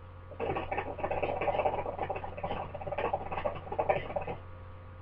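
Hookah water base bubbling as smoke is drawn through the hose, a rapid irregular gurgle that starts about half a second in and stops abruptly about a second before the end.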